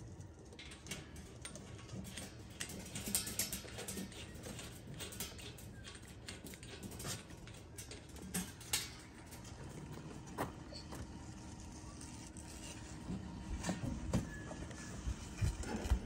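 Small irregular metal clicks and taps of an adjustable wrench and screwdriver working a bolt on a stainless-steel stovepipe chimney cap, over a low background rumble.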